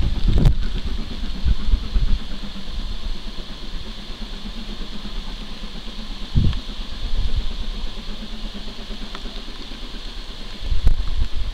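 Steady hiss of rain, with low rumbling gusts of wind buffeting the microphone near the start, about halfway through and again near the end.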